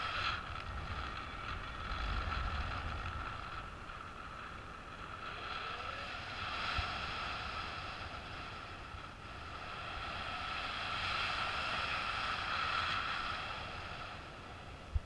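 Wind of paraglider flight rushing over the camera microphone: low buffeting with a steady high whistle, swelling and easing a few times.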